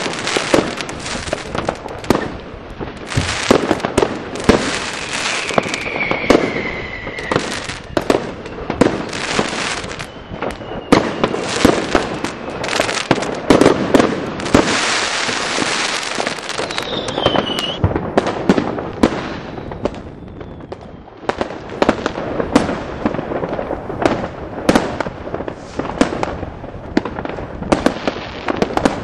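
Fireworks and firecrackers going off in rapid, overlapping bangs and crackles. Two whistling rockets fall in pitch, one about a fifth of the way in and one a little past halfway.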